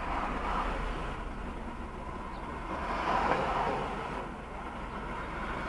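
Street traffic heard from inside a car: a steady low engine rumble, with vehicles passing close by that swell loudest about three seconds in.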